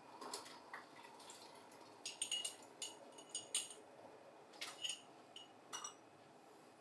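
Glass jars and metal kitchenware clinking and knocking at the stove: a quick run of sharp clinks about two seconds in, then a few more around five seconds, as empty canning jars are handled beside a stainless stockpot for sterilizing.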